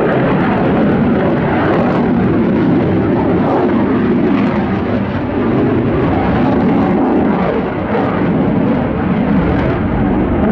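Boeing F/A-18F Super Hornet jet fighter's twin turbofan engines during a display flight: a loud, steady jet rumble that dips slightly and swells again near the end.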